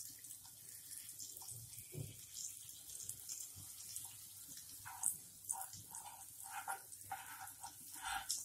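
Butter melting and sizzling faintly in a hot nonstick pan, a light crackling hiss, with a steel spoon scraping lightly over the pan as it spreads the butter.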